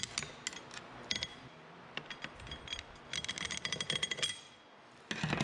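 Two steel flathead screwdrivers clinking and scraping against the assembly nut and steel hub of a final drive as they turn the nut loose on its threads, with a fast run of metallic clicks about three seconds in.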